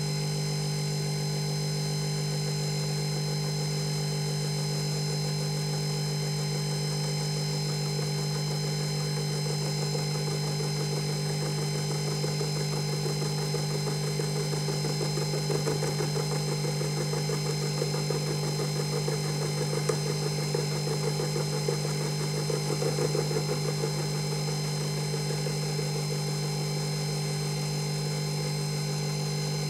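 Emco Unimat 3 mill running with a steady motor hum and high whine while an end mill takes a facing pass across an aluminium casting. A rough, fluttering cutting noise builds from about ten seconds in, is strongest in the middle, and dies away before the end, leaving only the motor running.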